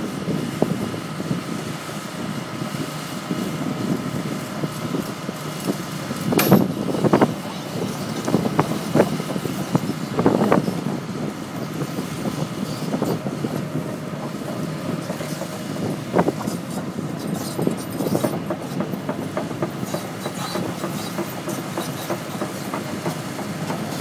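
Tracked excavator's diesel engine running steadily with a constant hum, as it lifts a precast concrete manhole section on chains. Sharp knocks and clanks come in a cluster about a quarter of the way in, with a few more later.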